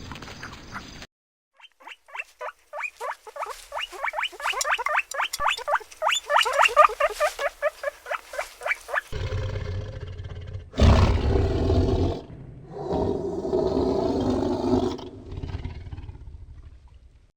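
Animal calls from cut-together clips: a run of rapid, short, high chirping calls, about eight a second, then loud, drawn-out, rough low calls in three long stretches.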